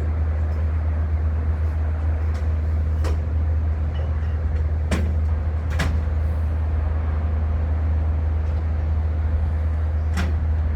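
A steady low engine-like drone running without change, with four sharp knocks at irregular intervals over it.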